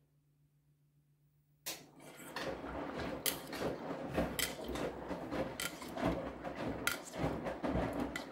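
Whirlpool FreshCare+ front-loading washing machine turning its drum in a wash phase: wet laundry and water slosh and tumble with small knocks. It starts suddenly about two seconds in, after a faint steady hum, and dies away as the drum slows near the end.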